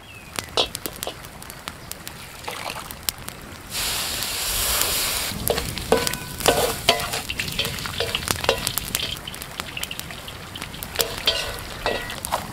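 Food frying in a wide black metal pan over a campfire: a loud burst of sizzling starts suddenly about four seconds in, then the sizzle goes on under many sharp clicks and scrapes as a wooden spatula stirs the food against the pan.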